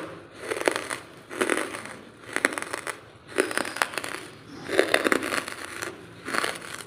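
A person chewing dry lump charcoal, a gritty crunch about once a second without pause.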